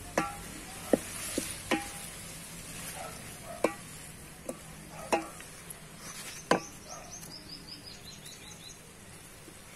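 Wooden spatula stirring chopped okra, tomatoes, onions and green chillies in a steel pot, knocking sharply against the metal about eight times with a short ring, mostly in the first seven seconds. Under it the vegetables sizzle steadily as they fry.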